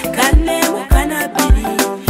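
Background music with a steady kick-drum beat about every half second and melody lines over it.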